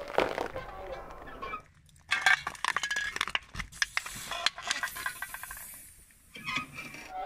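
Tractor tyre crushing objects on asphalt: a corn cob crackles and splits first, then metal cans and a metal bottle crunch and clink flat, with a spraying hiss about four and a half seconds in as a can bursts.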